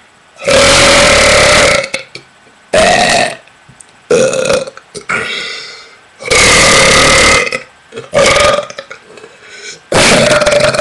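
A person belching very loudly, six burps in a row: two long, drawn-out ones held for over a second and several shorter ones, with brief pauses between.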